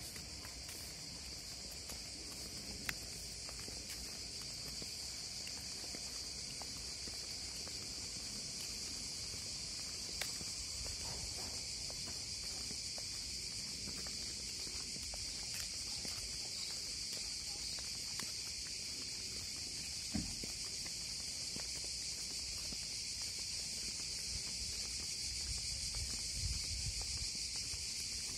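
Cicadas singing in a dense chorus: a steady, high-pitched shrill buzz that grows slowly louder, with a few faint clicks from footsteps.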